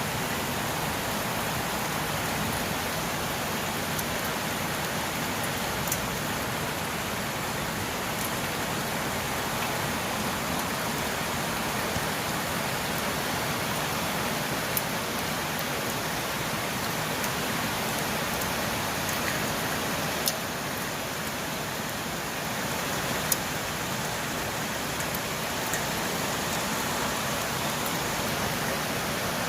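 Steady rain falling, an even hiss, with a few sharp ticks scattered through it.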